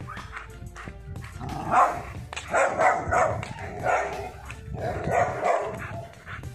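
A dog barking, a run of loud barks about a second apart beginning about two seconds in, over background music.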